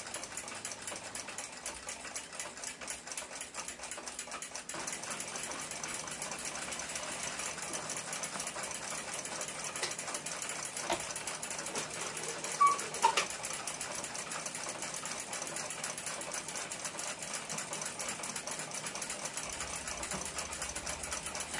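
A fast, even mechanical rattle like a small machine running, with a few sharp clicks about halfway through as short fasteners are pressed into the brass door hardware with a hand tool.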